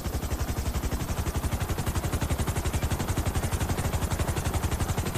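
Small DC motor spinning a two-blade plastic propeller on a toy helicopter made from a plastic bottle, running steadily with a fast, even pulsing beat of about a dozen pulses a second.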